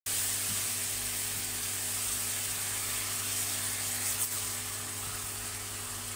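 Onions and peppers sizzling in a dark sauce in a nonstick frying pan as a spatula stirs them: a steady frying hiss over a constant low electrical hum, with a brief click about four seconds in.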